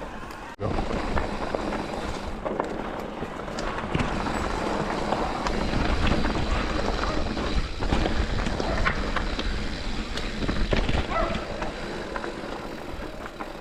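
Mountain bike rolling down a rough trail: tyres rushing over dirt and rocks with scattered clicks and knocks from the bike, and wind buffeting the microphone. The noise comes in abruptly about half a second in.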